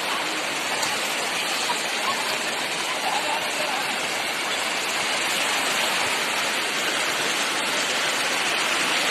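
Steady, unbroken rush of moving water.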